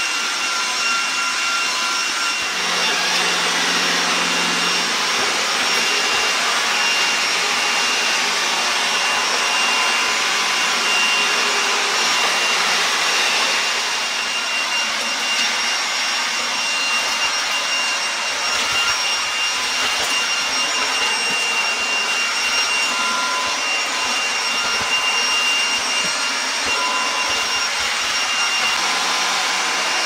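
iRobot Roomba 981 robot vacuum running, a steady whir of suction and brushes with a constant high-pitched motor whine, as it picks up scattered potting soil and pet hair from a tiled floor.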